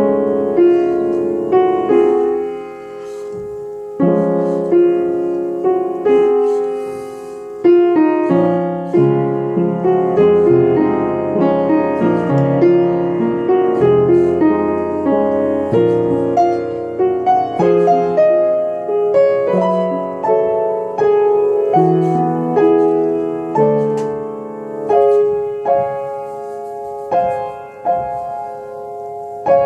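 Piano playing a slow, gentle Christmas-sounding piece built on a back-and-forth pattern between the first and third fingers, with struck chords and a changing bass line, each note ringing and fading.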